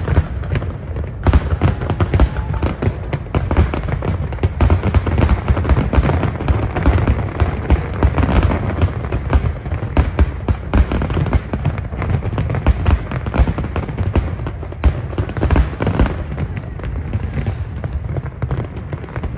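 Dense barrage of aerial firework shells bursting, a rapid run of bangs and crackles that thins out near the end.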